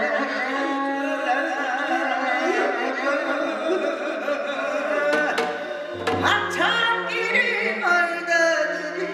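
Korean traditional music: a voice sung with wide vibrato and sliding pitch over accompanying instruments, with a drum struck about five and six seconds in.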